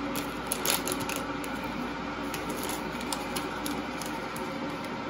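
Light clicks, taps and scrapes of a measuring spoon scooping cornflour out of its box, thickest in the first second or so, over a steady electrical hum.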